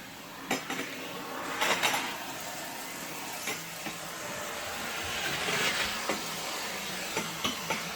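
Central vacuum hose and telescopic wand drawing air with a steady hiss that swells about five seconds in. Several light knocks and clatters from the plastic wand and tools being handled.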